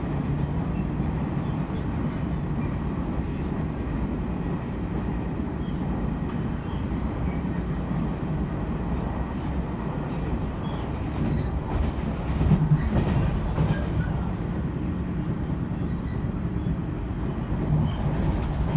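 Chu-Kuang express passenger train running through a station at high speed: a steady rumble of the carriages rolling past, with a run of wheel clacks over rail joints about two-thirds of the way in.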